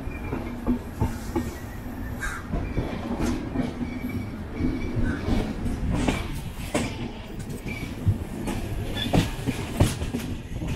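Passenger train running, a steady rumble with wheels clattering over rail joints in irregular clacks and knocks, several sharper ones in the second half.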